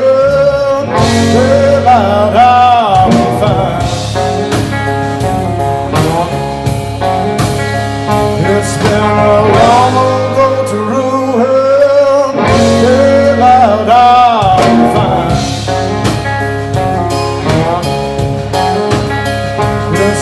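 Live blues-rock music: guitar and band playing, with a lead line that bends up and down in pitch over a steady bass.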